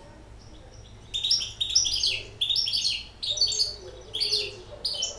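Caged goldfinch hybrid singing a rapid twittering song in short phrases, starting about a second in.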